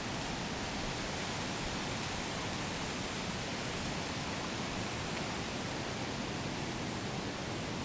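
Steady, even background hiss with nothing standing out from it.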